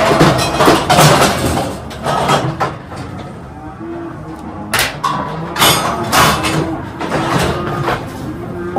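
Steel cattle crush clanking and rattling as its gates and bail are worked, a run of sharp metal knocks, the loudest near the start and about five seconds in.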